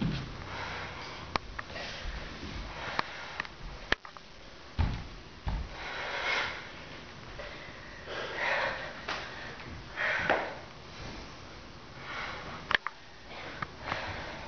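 A person breathing hard during martial-arts movements, with several audible breaths a couple of seconds apart. Bare feet give occasional thumps and taps on a wooden floor.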